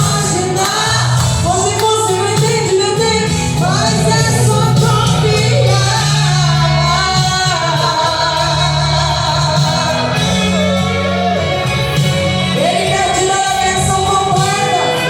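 Worship song playing: a voice singing long, bending lines over held low chords.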